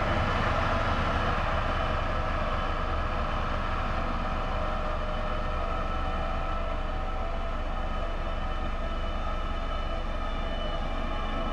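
Single-drum road roller's diesel engine running at a steady pitch, a continuous tonal hum over a low rumble, as the machine rolls over the laterite road base.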